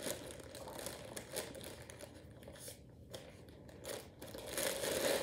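Clear plastic packaging crinkling as it is handled, in short irregular rustles that die down in the middle and pick up again near the end.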